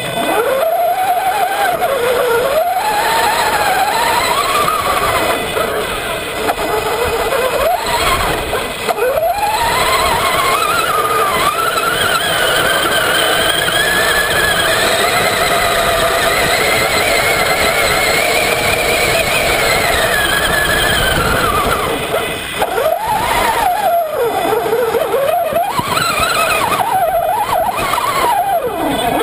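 Electric motor and drivetrain whine of a Traxxas Summit RC truck driving over sand, its pitch rising and falling with the throttle. It climbs to a long, high, steady whine through the middle, then rises and drops several times in quick succession near the end.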